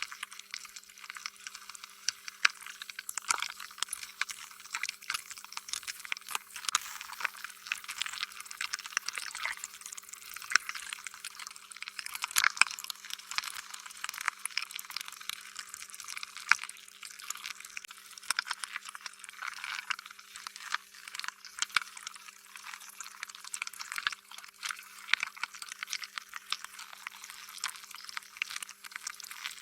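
Slime being squished and stretched: a dense, irregular run of wet, sticky clicks and pops, over a faint steady hum.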